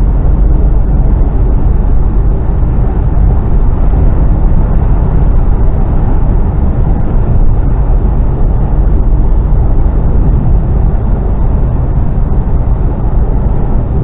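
Mercedes Actros lorry on the move, heard from inside the cab: a steady low engine drone and road rumble.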